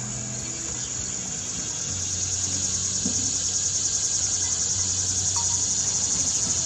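Crickets chirping: a steady, high-pitched, rapidly pulsing trill that grows a little louder after the first couple of seconds.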